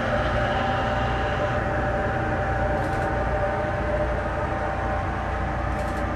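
Steady machinery hum: a low rumble with a few held tones over it, unchanging throughout.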